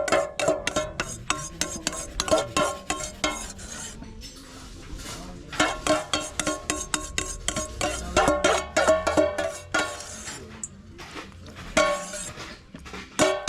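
Metal utensil clattering and scraping against a metal pot while seasoned goat meat is mixed by hand: rapid, irregular clinks with short metallic ringing, coming in bursts with brief pauses.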